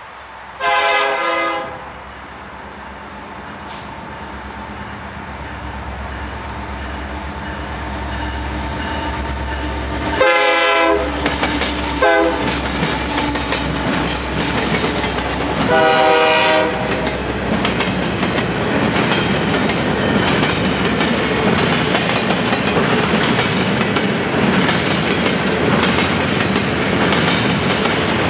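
Florida East Coast Railway train approaching and passing. The locomotive sounds its multi-tone air horn in four blasts: one long blast, then later a long, a short and a long. The rumble of the engines and the rail noise of the passing train grow steadily louder.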